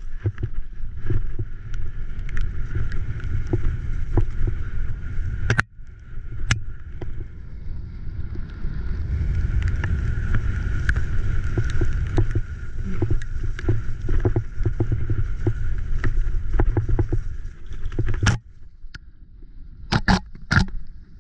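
Wind buffeting the action camera's microphone as a graziella folding bike speeds down a rough dirt trail, with the bike rattling and clattering over bumps. The wind noise eases near the end while a few sharp knocks come through.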